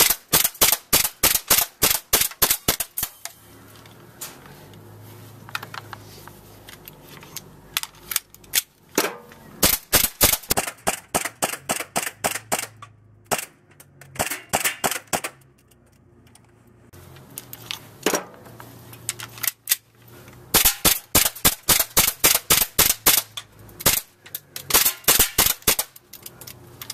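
Airsoft blowback pistol firing sharp pops in quick strings of several shots a second, with short pauses between strings.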